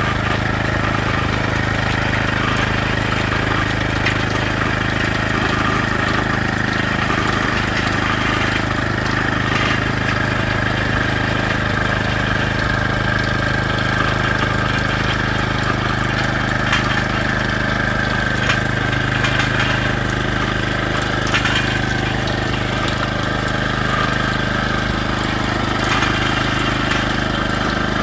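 Steady engine hum of a vehicle running, even and unbroken.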